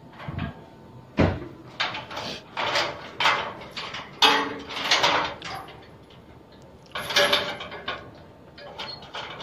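Metal gate rattling and clanking as its lock or latch is worked by hand, in a series of irregular knocks and scrapes.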